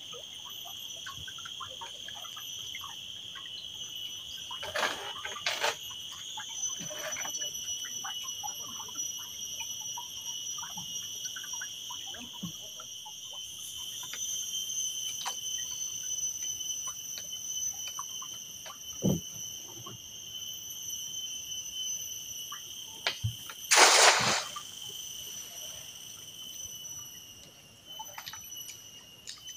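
Insects chirring steadily in two high-pitched bands, with scattered small clicks and knocks. A brief, loud noise cuts in about 24 seconds in.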